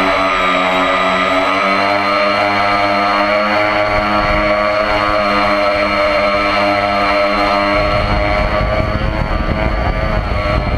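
Electric motor and propeller of an RC model airplane whining steadily, heard from the camera mounted on the plane, with wind noise on the microphone. About eight seconds in, the lower part of the motor hum fades and low wind buffeting grows louder.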